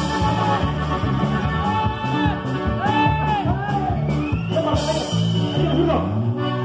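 Live regional Mexican band playing: strummed acoustic guitar, electric bass and a drum kit, with a steady beat and moving bass line. About six seconds in the band slides into a long held chord.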